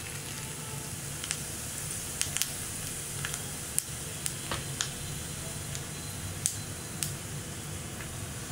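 Mustard and cumin seeds sizzling in hot oil in a small pan for a tempering. Irregular sharp pops, about one every second or so, come from the mustard seeds crackling.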